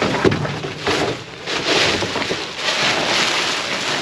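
Plastic bags and cardboard boxes rustling and crinkling as gloved hands rummage through trash, with a few knocks near the start.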